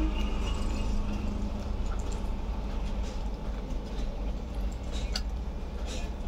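Steady low rumble of background noise, with a few faint wet clicks from hands squeezing a raw hilsa fish to push out its roe.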